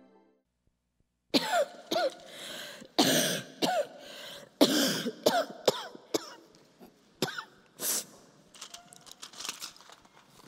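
A person coughing hard again and again, with throat clearing, in a fit that starts about a second and a half in and runs for some six seconds before thinning out into fainter sounds; the coughing acts out a heavy cold.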